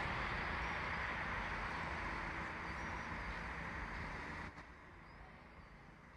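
Footsteps rustling and crunching through dry fallen leaves, stopping abruptly about four and a half seconds in, with a few faint bird chirps.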